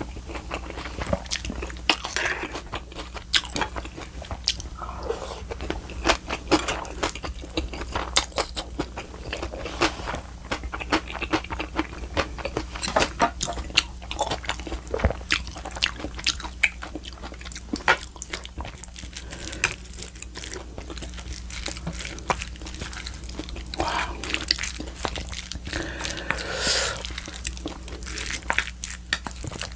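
Close-miked chewing and biting as a person eats spicy raw oyster salad with boiled pork: rapid wet smacks and crunches throughout, over a steady low hum.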